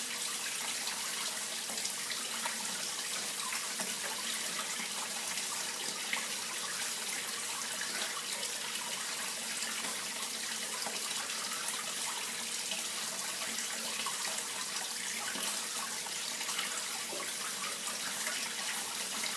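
Water flowing steadily, an even rushing hiss with fine splashing throughout.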